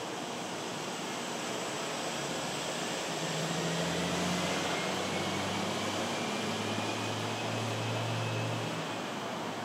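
Outdoor background noise with a motor vehicle's low engine hum that comes in about three seconds in, swells slightly and fades near the end.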